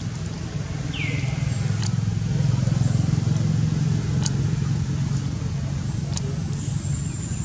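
Low, steady engine rumble of a passing motor vehicle, swelling to its loudest about three seconds in and easing off. A short falling chirp sounds about a second in.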